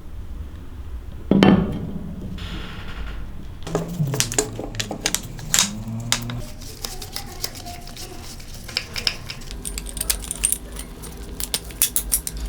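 Small metal parts and tools being handled, with clinks and light taps throughout and one loud knock about a second and a half in.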